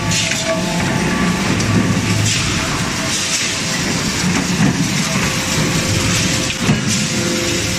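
Steady din of a forging line's machinery, with a faint continuous hum and a few scattered knocks, one sharper knock near the end.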